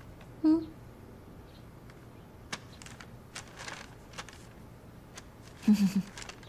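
Sheet of paper rustling and crinkling as it is handled and unfolded, in short scattered rustles and clicks. A brief hummed voice sound comes about half a second in, and a low grunt-like voice sound near the end; these two are the loudest sounds.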